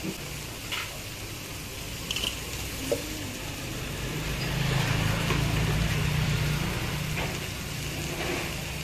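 Pork patties and slices sizzling on a flat-top griddle, with a few light clicks of metal tongs. A low rumble swells in the middle and eases off near the end.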